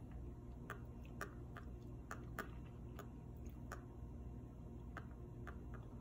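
Light, sharp ticks at uneven intervals, roughly one or two a second, over a low steady hum.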